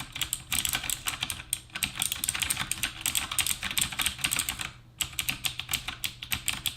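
Fast typing on a Havit KB366L mechanical keyboard with clicky blue switches: a dense, loud stream of key clicks with the keys bottoming out, pausing briefly about five seconds in.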